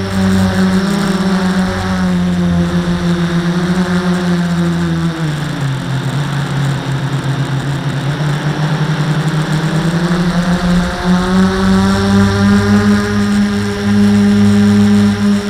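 Quadcopter's electric motors and propellers buzzing loudly, heard from the camera mounted on the quad. About five seconds in the pitch sinks as the motors slow, then climbs back up around eleven seconds as they speed up again.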